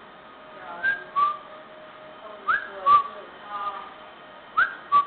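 Whistled two-note chirps repeated three times, about every two seconds: a high rising note followed by a lower falling one, each set off by a sharp click.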